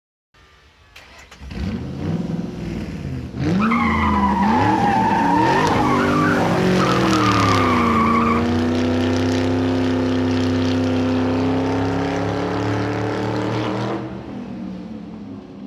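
Motor vehicle engine revving, its pitch rising and falling, then holding steady at speed. A high squeal rides over it for several seconds, about three to eight seconds in.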